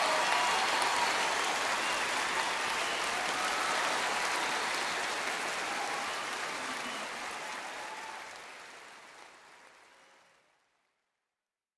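Applause from an audience, fading out slowly until it is gone near the end.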